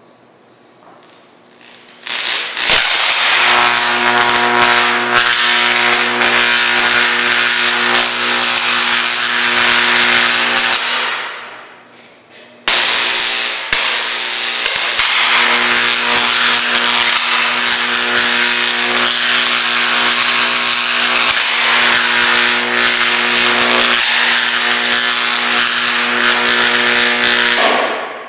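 A 75 kV high-voltage electric arc striking from a swinging brass pendulum electrode to a metal Maglite flashlight: a loud crackling hiss over a steady electrical buzz. It starts about two seconds in and dies away around ten to eleven seconds. It strikes again suddenly about a second and a half later and cuts off near the end.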